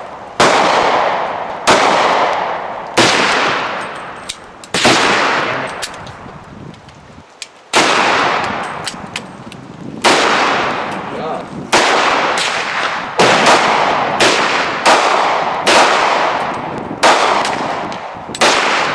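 Gunshots on a shooting range: about fifteen shots at an irregular pace, some in quick pairs and one longer pause of a few seconds, each ringing out with a long fading echo.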